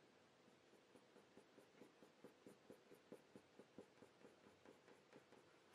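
Faber-Castell Polychromos coloured pencil drawing short quick strokes on hot-press watercolour paper, a faint scratching at about four or five strokes a second, starting about a second in.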